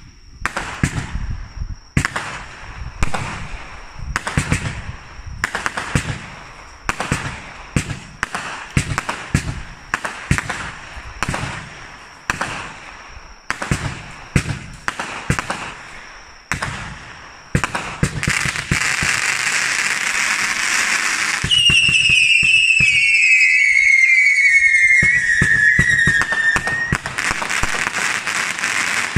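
Hands Fireworks 'Mega Blast' 42-shot consumer cake firing: a rapid string of launch thumps and bursts, about one to two a second. About two-thirds of the way through it turns into a dense, continuous crackle, with several falling whistles screaming over it for a few seconds, and crackling bursts again near the end.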